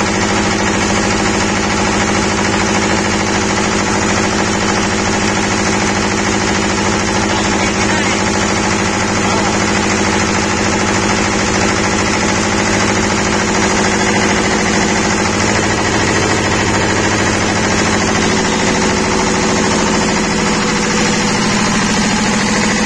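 Twin-cylinder engine of a ROXVEL 20 kVA generator set running steadily at constant speed, loud and even, with the generator producing mains voltage.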